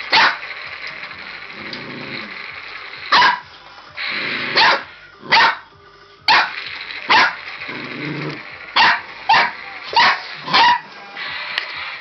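A border collie puppy barking: about ten short, sharp, high barks at irregular intervals, with low growling between some of them.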